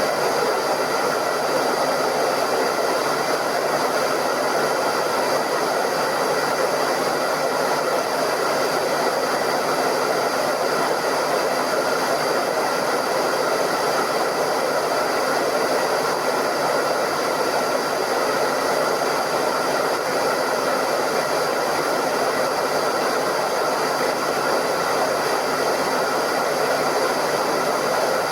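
Hairdryer running continuously: a steady, even blowing noise with a faint constant motor whine, never changing in level.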